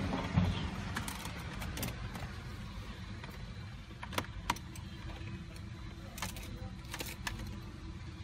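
Scattered light clicks and knocks of a dash cam power cable and plastic USB car charger being handled, over a steady low rumble in a car cabin.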